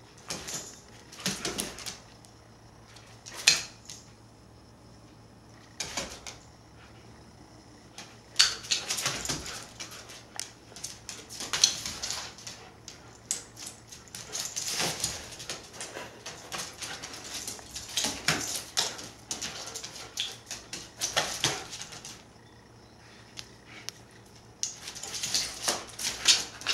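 A Siberian husky's claws clicking and skittering on a hardwood floor as it darts and pounces after a laser dot. Runs of rapid, irregular clicks come with pauses of a few seconds between them.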